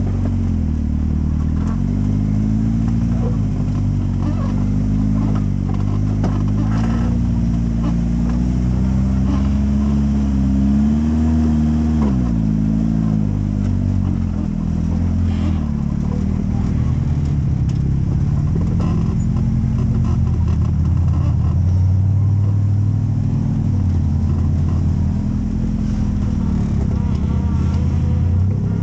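Off-road rock-crawler buggy's engine running and revving up and down in repeated swells, with a sharp drop in revs about twelve seconds in.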